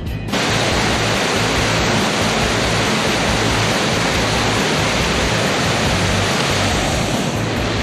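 Loud, steady roar of Niagara Falls' falling water, cutting in abruptly just after the start.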